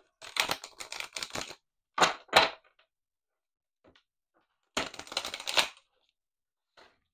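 A deck of oracle cards shuffled by hand: a quick flurry of cards riffling and slapping together, two sharp taps about two seconds in, a pause, then a second flurry of shuffling.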